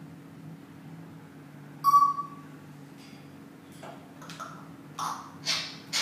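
Congo African grey parrot giving one short, sharp whistle, then a run of short raspy squawks that grow louder near the end.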